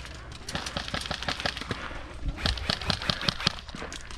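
Airsoft guns firing, many quick irregular shots cracking in rapid strings.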